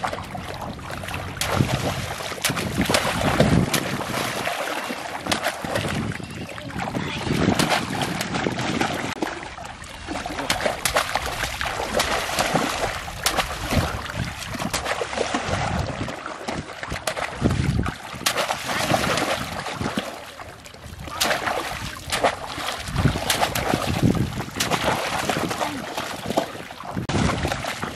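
Shallow water splashing and sloshing as bamboo polo basket traps are plunged into it and people wade through, with irregular splashes throughout.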